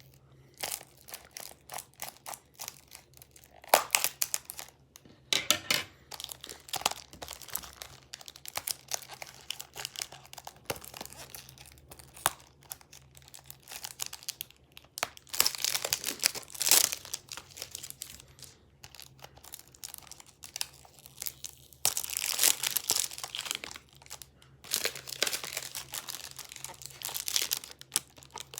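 Plastic shrink-wrap being torn and peeled off a Blu-ray case by hand, with irregular crinkling and crackling that comes in louder stretches.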